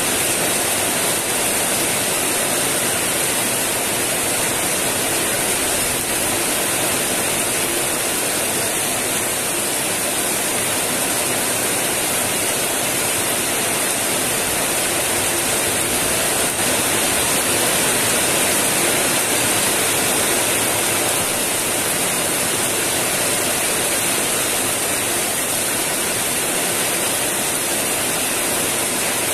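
Heavy tropical rain falling steadily on wet ground and puddles, an even, unbroken hiss.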